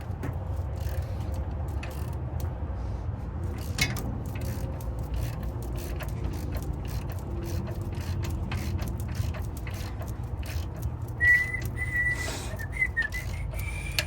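A steady low hum with scattered light clicks and taps, like hand tools working on engine parts. About eleven seconds in, a person starts whistling a tune.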